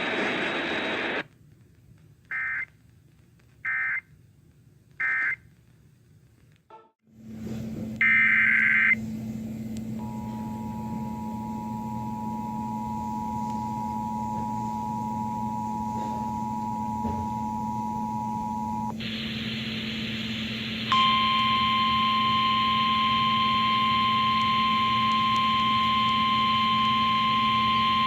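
Emergency Alert System signalling between two weather warnings. First come three short warbling data bursts about a second and a half apart, the end-of-message code closing the last alert. After a pause there is another data burst and the steady two-tone EAS attention signal for about nine seconds. About two seconds later a louder single steady alert tone starts and runs on, with a low hum under it throughout.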